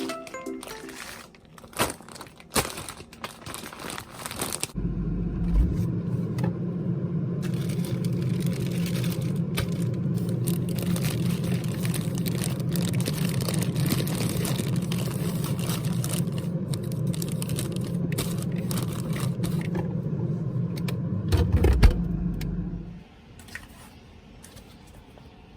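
A few knocks and clicks, then an electric appliance motor switches on and runs with a steady hum for about eighteen seconds before cutting off.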